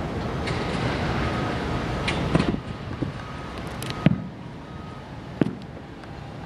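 Distant fireworks shells bursting: a series of sharp booms and cracks about half a second to a second apart, the loudest about two and a half and four seconds in, over a steady rushing background.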